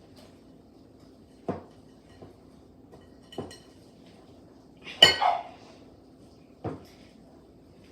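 Kitchen bowls and utensils knocking and clinking during baking prep: a handful of separate sharp knocks, with the loudest, a short clatter, about five seconds in.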